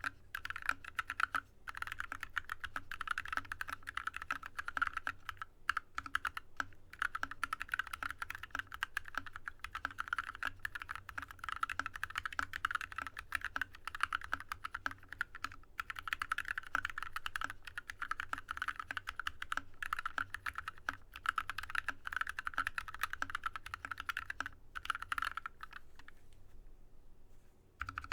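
Continuous fast typing on a Drop ALT low-profile mechanical keyboard with lubed Yok Polar Panda linear switches: a dense stream of keystroke clacks, with a short pause near the end.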